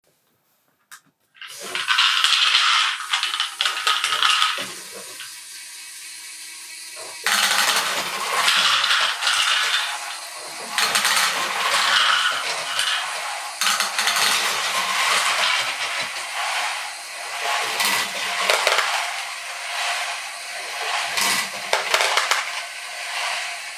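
LEGO GBC screw lift built from STUNTZ helix parts, turned by a small electric motor, with small plastic balls clattering and rattling against the plastic as they are scooped, carried and dropped into a plastic bin. The clatter starts about a second and a half in, eases for a couple of seconds around the middle of the first third, then runs on densely.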